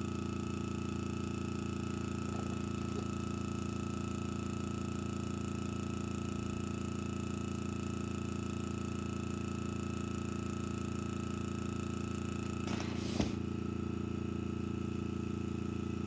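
Steady hum of a small air compressor feeding an airbrush, running without change. A short knock about thirteen seconds in is the loudest sound.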